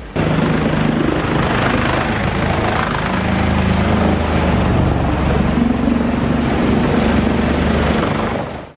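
Morbark 30 RXL whole-tree chipper running hard under load, its diesel engine's steady drone mixed with the dense noise of wood being chipped. It cuts off suddenly near the end.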